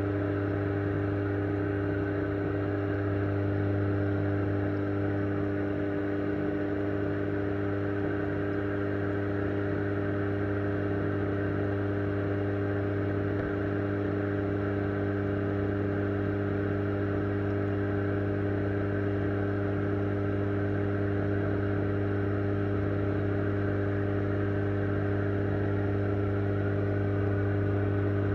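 Steady hum of aquarium equipment with the hiss of air bubbles rising from a bubble curtain, heard through an underwater microphone in the tank.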